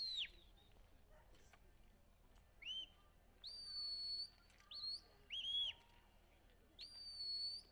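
Sheepdog handler's whistle commands: a series of about five sharp, high whistle blasts, each sliding up and some held for about a second, others short. These are commands steering the dog as it drives the sheep.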